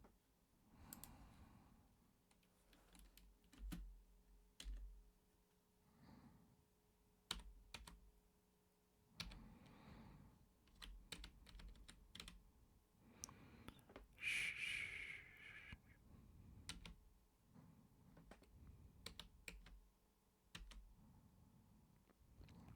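Quiet computer keyboard typing: scattered keystrokes, sometimes in quick runs, with soft slow breaths in between. A louder hiss lasting about a second and a half comes just past the middle.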